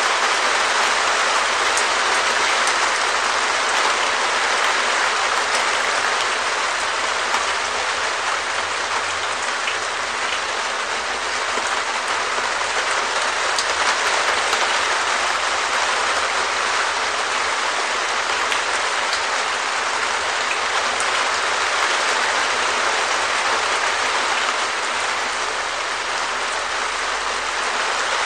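Steady rain falling on a Perspex (clear acrylic sheet) shed roof: a dense, even patter of drops with scattered sharper single drop hits.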